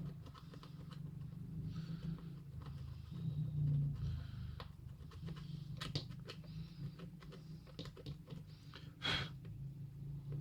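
Small clicks and taps of hand tools working on a car radio's circuit board, over a steady low hum, with a sharper click about nine seconds in.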